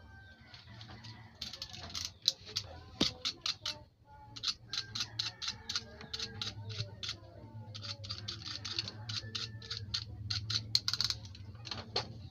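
Runs of rapid sharp clicks, several a second, coming in three bursts, over a steady low electrical hum.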